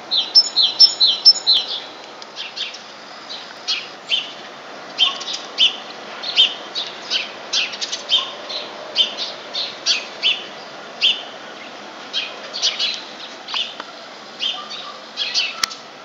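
Birds chirping and twittering: many short, high calls several times a second, over a steady background noise.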